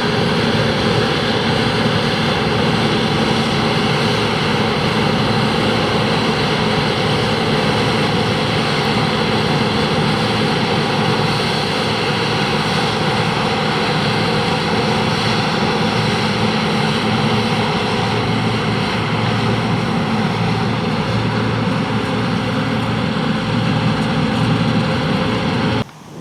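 John Deere 2264 combine harvester running steadily while harvesting winter barley: a loud, even engine and machinery drone with a few steady whining tones. It cuts off suddenly near the end.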